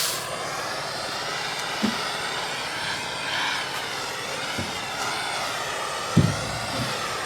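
Steady rushing roar of a gas torch flame, with a few dull knocks, the loudest about six seconds in.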